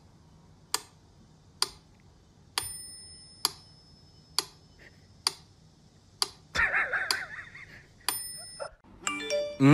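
A mechanical metronome ticking steadily a little faster than once a second, its bell ringing on two of the beats. A short scratchy sound comes about two-thirds of the way through.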